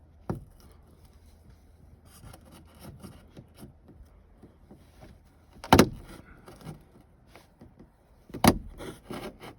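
Light crackling and handling noises of hand work on a sunroof's vent trim and fiberglass strip, with a click near the start and two sharp snaps about six and eight and a half seconds in.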